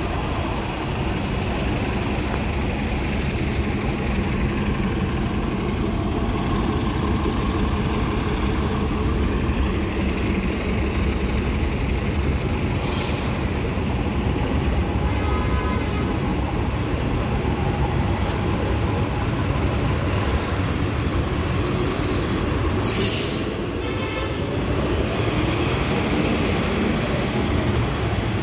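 City transit buses, among them a New Flyer XD60 articulated bus, with diesel engines idling in a steady low rumble. Several short air-brake hisses come about 13, 20 and 23 seconds in. Near the end a bus engine rises in pitch as it pulls away.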